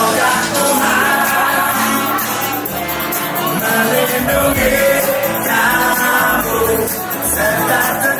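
Background music: a song with singing over a steady band accompaniment.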